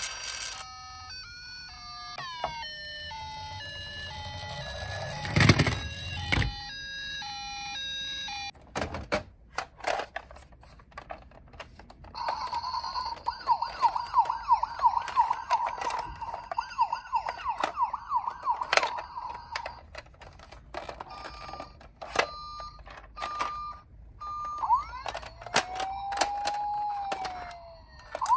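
Electronic sirens from battery-powered toy ambulances, one after another: first a run of stepped beeping tones, then a fast warbling siren near the middle, then a slow rising-and-falling wail near the end. Clicks and knocks of plastic toys being handled run between them.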